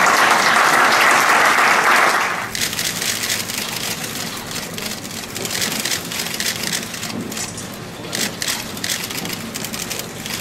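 Audience applauding, loud for about the first two and a half seconds, then dying down to scattered claps.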